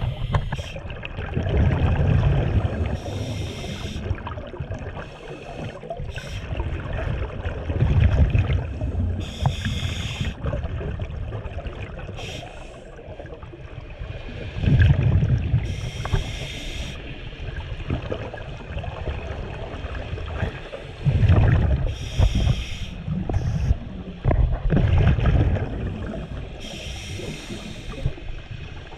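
Scuba regulator breathing heard underwater: each breath brings a burst of low bubbling from the exhaled air and a roughly one-second hiss as air is drawn through the regulator, five breaths about six seconds apart.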